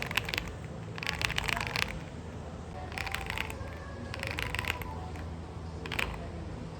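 ABKO AF108PRO mechanical keyboard with Seiya switches being typed on in short bursts of rapid keystrokes, a crisp 'dogak-dogak' clack like tapping pebbles, with a single stroke near the end.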